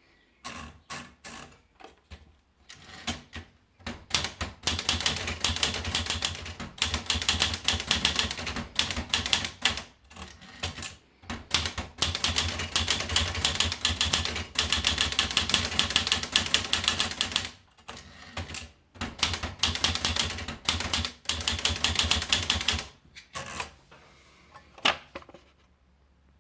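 Olivetti Dora manual portable typewriter being typed on. A few scattered key strikes give way to long runs of rapid keystrokes broken by short pauses, then thin out to a few strikes near the end.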